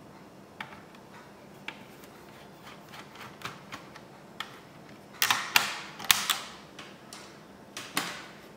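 Hands working on an opened HP DV6000 laptop's plastic and metal case: scattered light clicks, then a quick run of louder sharp snaps and clatter about five to six and a half seconds in, and another near the end.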